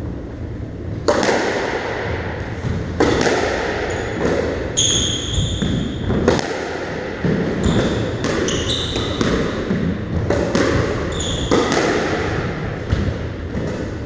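A squash rally: the ball is struck by rackets and smacks off the walls about a dozen times, each hit ringing in the court's echo. Short high squeaks, from shoes on the wooden floor, come in several places.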